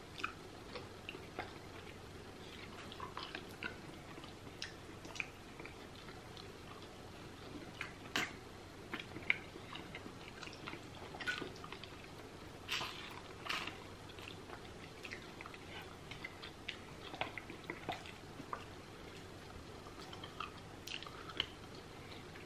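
Two people chewing and biting goat-head meat (isi ewu) eaten by hand: quiet, irregular mouth clicks and smacks, a few louder than the rest.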